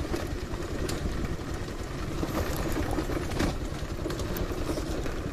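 Motorcycle engine running at low speed on a rough, stony dirt track, with scattered clicks and knocks as the bike jolts over loose stones.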